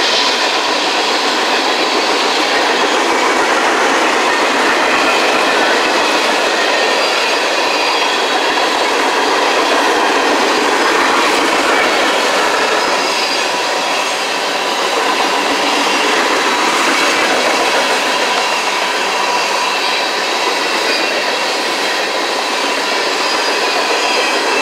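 Freight cars of a long manifest train rolling past: a loud, steady rumble and clatter of steel wheels on the rails, with thin, faint squealing tones from the wheels.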